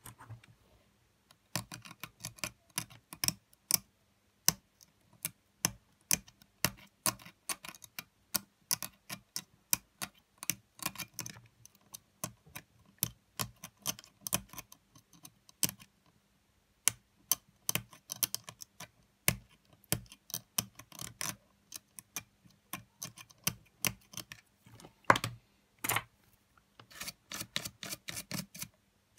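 Steel tweezers scraping and tapping at the contacts on a Sony WM-FX811 cassette Walkman's circuit board: a fast, irregular run of sharp little clicks and scratches, starting about a second and a half in.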